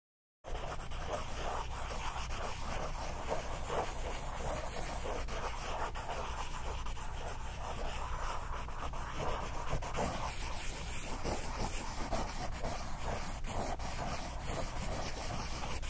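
A drawing tool scratching and rubbing across paper in a continuous stream of small scratches and ticks over a low steady hum. It starts about half a second in.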